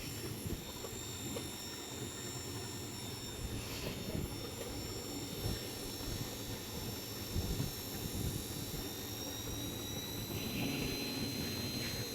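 Dell Latitude E5420 laptop cooling fan running noisily with a steady high whine and rumble. A piece of the cover or paper caught against the fan is the cause. One whining tone rises slightly in pitch near the end.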